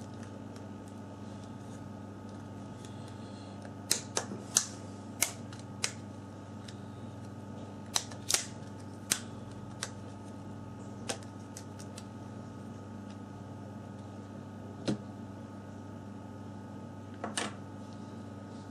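About a dozen sharp, scattered clicks and taps from small tools and the plastic parts of a Samsung Galaxy S4 being handled as the phone is taken apart. They sit over a steady electrical hum.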